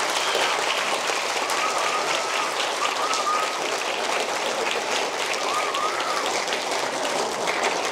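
Auditorium audience applauding, a steady dense clapping.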